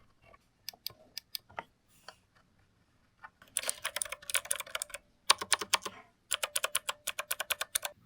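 Typing on a 7KEYS TW1868 retro typewriter-style mechanical keyboard: a few separate key presses, then three quick runs of clacking keystrokes from about three and a half seconds in.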